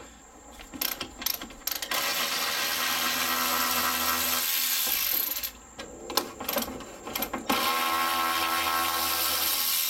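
A ratchet wrench being run on a bolt in two long runs of about three seconds each, a rapid steady clicking, with a few single clicks before the first run.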